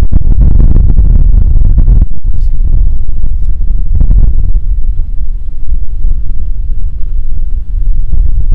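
Lowered Infiniti G sedan rolling slowly past at close range, its exhaust giving a loud, deep rumble.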